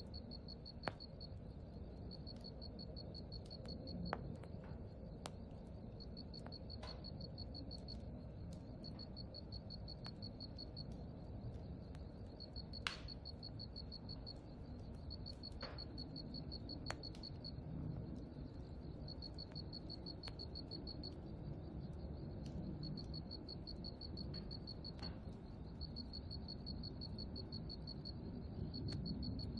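An insect chirping in high, fast-pulsed bouts of a few seconds each, with short gaps between them, over a steady low rumble of outdoor background noise. A few faint sharp ticks come and go.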